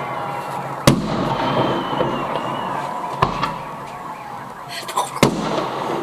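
Fireworks going off: four sharp bangs, the last two close together near the end, over a steady background rumble and crackle with a faint wavering high tone.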